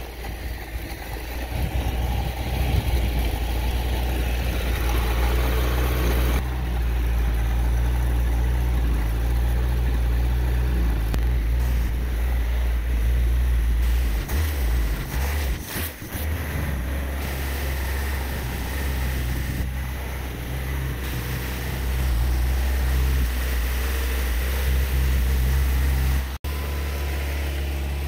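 Carbureted Toyota 22R four-cylinder engine idling low, held where it is almost dying, while it is checked for a vacuum leak. The engine sound dips briefly about halfway through.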